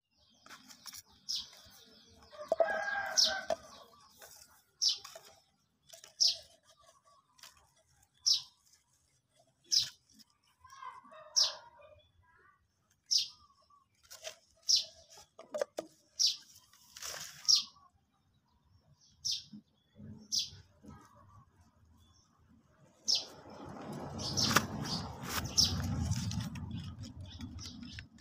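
A bird calling over and over in short, high chirps, roughly one every second and a half. Near the end, close rustling and handling noise takes over.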